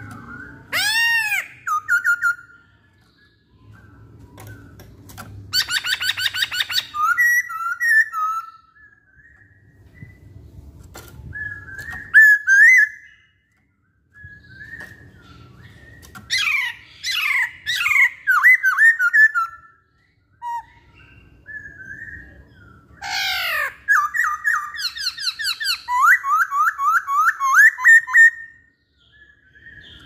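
Caged black-throated laughingthrush singing loud whistled phrases in bursts with short pauses: sweeping rising and falling whistles and fast runs of repeated notes. Between the phrases there are quieter low rustling patches.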